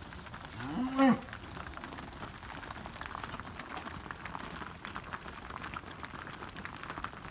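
A cow mooing once, about a second in: a short low call that rises in pitch and then holds, over a background of faint clicks and rustle.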